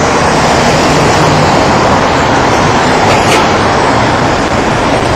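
Loud, steady roar of city street traffic, an even rushing noise with no distinct engines or horns standing out.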